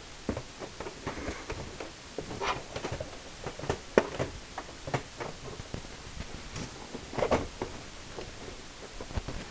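Irregular clicks, taps and short scrapes of metal and plastic as a CD-ROM drive is worked into the drive bay of a Dell desktop case, its side screws sliding into the bay's slots.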